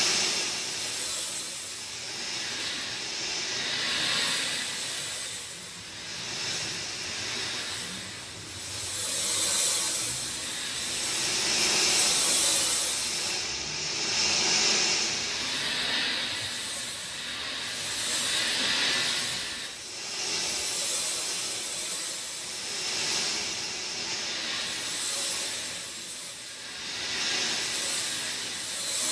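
Steady rain falling, a dense hiss that swells and eases every few seconds.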